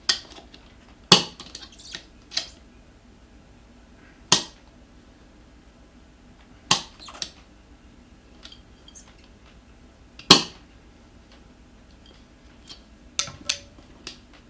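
Metal tire spoons clacking against the scooter's wheel rim as a tight tire is levered off: about eight sharp, separate knocks at irregular intervals, the loudest about a second in and about ten seconds in.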